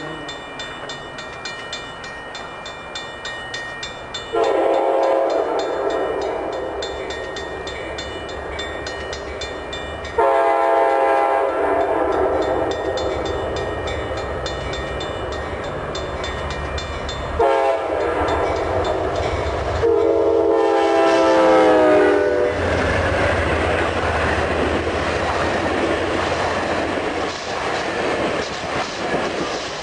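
Locomotive air horn sounding four chords (long, long, short, then long) over the rumble and clatter of a moving train: the standard grade-crossing signal. After the last blast the train rolls past with a steady rumble and rapid wheel clicking on the rails.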